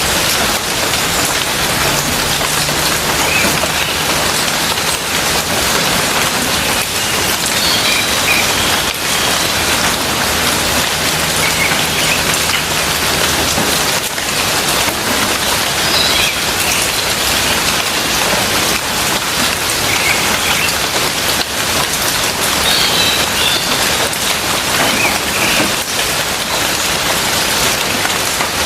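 Rain falling steadily, an even, dense patter of drops.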